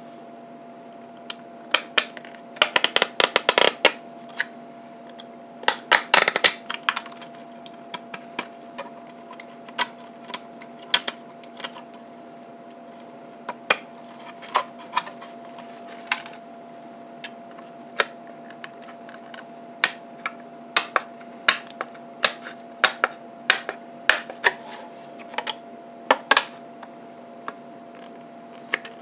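Thin 3D-printed plastic mesh being picked and broken out of the cutouts of an enclosure panel with a metal tool and fingertips: irregular sharp clicks and snaps, with dense crackling bursts about two to four seconds in and again around six seconds. A faint steady hum runs underneath.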